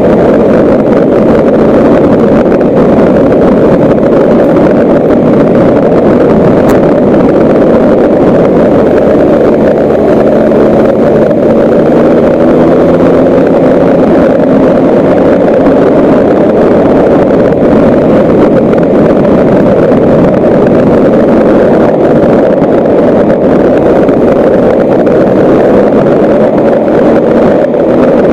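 Motor vehicle driving along a gravel road: a loud, steady rumble of tyres on gravel and wind on the microphone, with a faint engine note that wavers in pitch around the middle.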